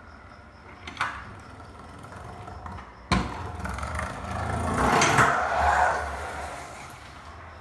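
A sharp clack about three seconds in, then a trick scooter's small wheels rolling over concrete, growing louder as it comes close and passes by, then fading.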